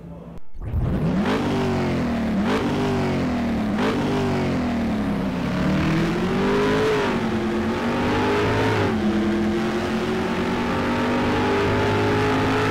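Car engine accelerating hard through the gears: the pitch climbs and drops back at each shift, roughly every second and a half at first, then settles into a steady high-speed run from about nine seconds in.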